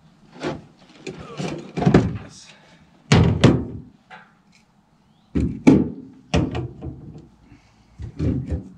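Hard clunks and knocks of parts being handled and taken apart, in irregular clusters every second or two, some with a short ring.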